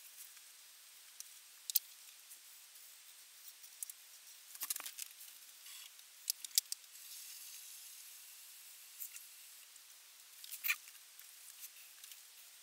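Ink pen nib scratching across paper in short strokes, with a few sharp clicks and taps scattered through, the loudest about five seconds in and again near the end.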